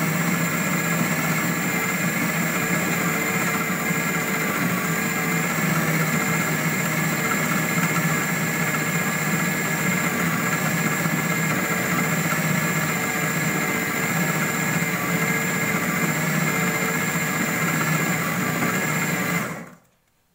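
Electric food processor's motor running steadily while its blade chops raw mince with onion, tomato and green chillies. It is switched off near the end and the motor stops abruptly.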